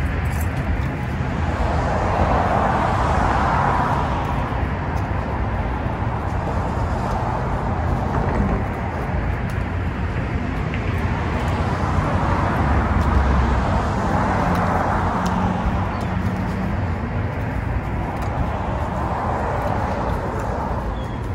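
Road traffic going by: a steady hum of passing cars, with several vehicles swelling up and fading away one after another.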